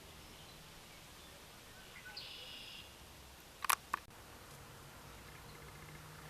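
Quiet outdoor ambience with faint bird chirps and a short high trill. Two sharp clicks come close together a little past halfway and are the loudest sound; a low steady hum comes in near the end.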